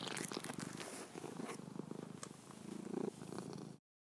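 Domestic cat purring close to the microphone, a low rumble of rapid pulses that cuts off suddenly near the end.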